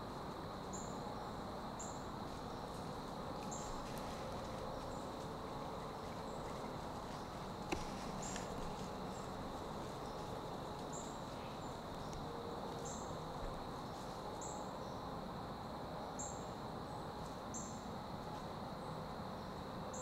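Woodland insect drone: a steady high-pitched whine, with short, very high chirps repeating about every one to two seconds. A single sharp click sounds about eight seconds in.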